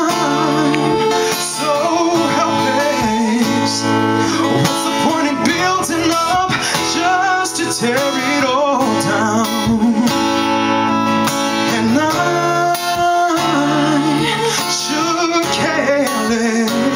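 Strummed acoustic guitar with a man singing over it, with wavering vibrato on held notes, in a live solo acoustic song.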